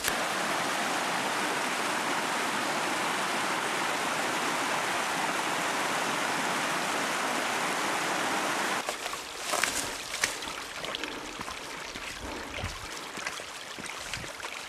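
Fast mountain stream rushing over rocks, a steady, even noise that cuts off about nine seconds in. After it, footsteps crunch on leaf litter and soil along a forest path.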